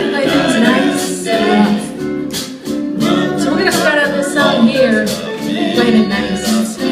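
A band playing live, with a singer over guitar accompaniment.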